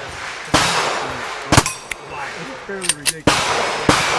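Gunshots from a single-action revolver being fired at a target: about four sharp reports in quick succession, the loudest about one and a half seconds in.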